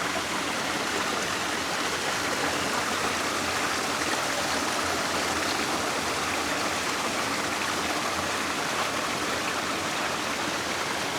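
Small mountain waterfall, its water rushing and splashing in a steady, even noise.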